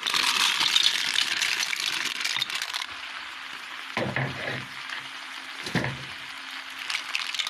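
Fresh clams in their shells sizzling in hot oil with sautéed vegetables, just after being tipped into the pan. The sizzle is loudest for the first three seconds, then dies down, with a couple of brief stirring sounds.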